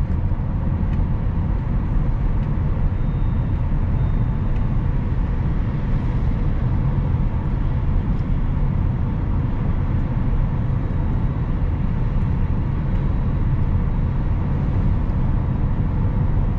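Steady low tyre and wind noise inside the cabin of a Tesla Model S Plaid driving on the motorway, with a few faint steady high tones.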